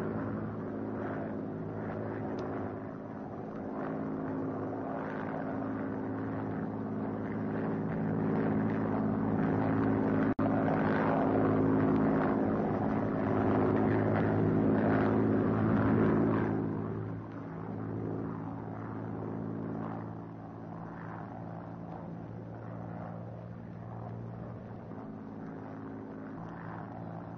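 Propeller airliner's engines droning steadily, a low hum of several held tones with a hiss over it. It is loudest in the middle and eases off after about 17 seconds, with one brief click about ten seconds in.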